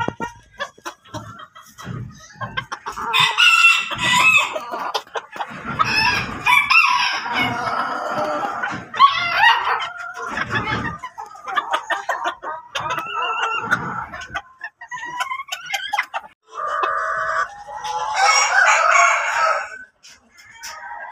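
Several chickens calling over one another, clucking and roosters crowing, with a long crow near the end.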